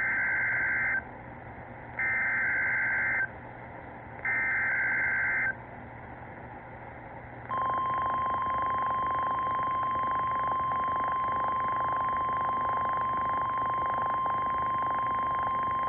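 NOAA Weather Radio emergency alert signal: three SAME data-header bursts, each a harsh warbling screech about a second long and about a second apart. After a short pause comes the steady single-pitch warning alarm tone, which runs on past the end. The alarm tone sets off alert receivers, and here it introduces a severe thunderstorm warning.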